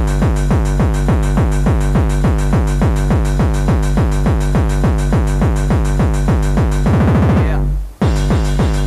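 Gabber hardcore techno: a heavy, distorted kick drum pounding in a fast, steady beat. About seven seconds in it breaks into a rapid kick roll, cuts out for a moment, then the beat comes back.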